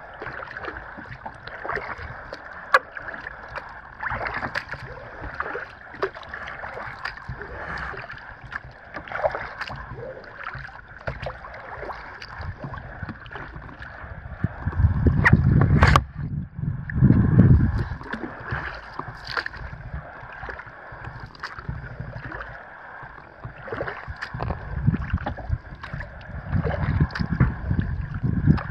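Kayak paddling on calm lake water: water lapping and gurgling against the hull, with small splashes and drips from the paddle. A loud low rumble comes twice about halfway through and again near the end.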